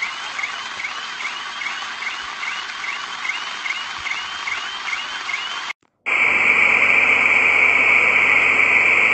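Steady hiss of rushing floodwater with a quick, evenly repeating chirp over it, about two or three a second. After a sudden cut about six seconds in, a louder, steady rushing noise follows.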